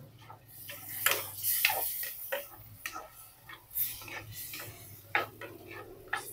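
Wooden spatula scraping and knocking against a clay pot while a tomato and eggplant mixture is stirred, in irregular clicks and taps. A hiss of liquid sizzling in the hot pot comes in the first couple of seconds.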